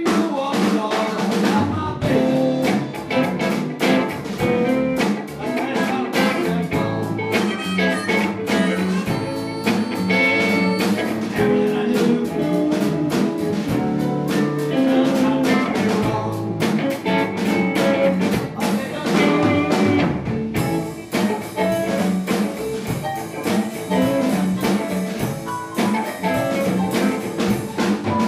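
Blues band playing an instrumental passage: electric bass, drum kit, electric guitar and keyboard, with harmonica played in a neck holder over the top.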